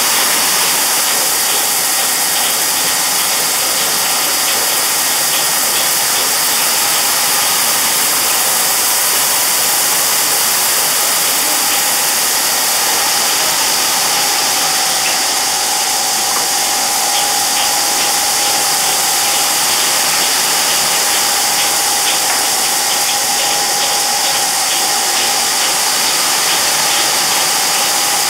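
Rotating konpeito pan tumbling a bed of small sugar grains: a steady sandy hiss with faint ticking of grains over the pan's machinery. A thin steady whine joins about halfway through.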